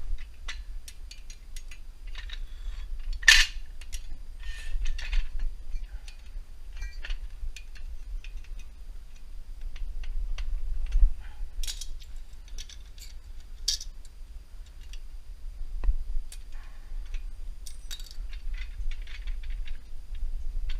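Steel cotter pin being worked loose from a Hi-Lift jack attachment: scattered metal clicks, clinks and light rattles, with a sharper clank about three seconds in, over a low rumble. The pin is stiff and does not come off easily.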